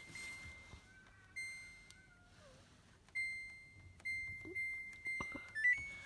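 Samsung WW8500 washing machine's control panel beeping as the program selector dial is turned: short high single-pitch beeps, one per program step, coming closer together in the second half and ending with a quick stepped run of tones.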